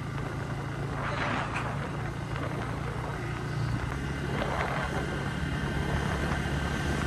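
Bajaj Pulsar N160 motorcycle's single-cylinder engine running at a steady speed, a low hum that holds the same pitch throughout.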